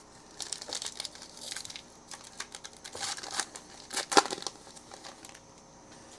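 Foil trading-card pack wrapper being torn open and crinkled by hand: irregular rustling and crackling for about five seconds, with the sharpest crackle near the end.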